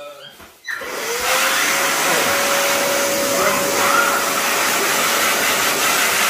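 Big Boi handheld car dryer switched on with its narrow nozzle fitted. Under a second in, the blower motor spins up with a short rising whine and settles into a steady whine over a loud, even rush of air.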